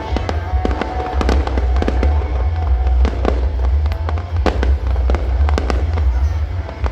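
Fireworks going off in rapid, irregular bangs and crackles, over a heavy low rumble.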